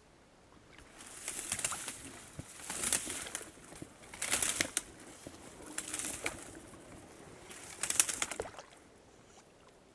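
Oars dipping and splashing as an inflatable boat is rowed slowly, five strokes about one and a half to two seconds apart.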